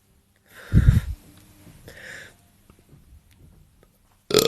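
A woman's short, sharp breath with a low thud about a second in, then a fainter breath around two seconds. A loud burp starts right at the end.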